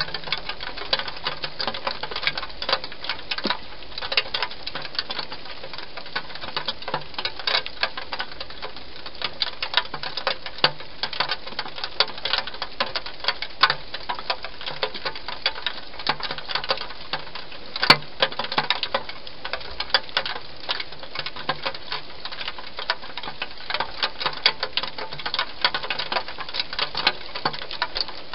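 Wild hedgehog chewing and crunching dry food: a fast, irregular run of small clicks and smacks, with one sharper click about eighteen seconds in.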